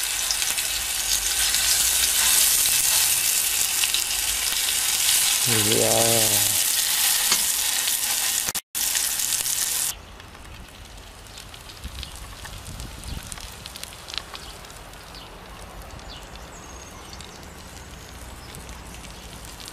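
Burger patties frying in fat in an enamel pan: a loud, steady sizzle with fine crackles. It stops abruptly about halfway through, leaving only a much quieter background with faint scattered clicks.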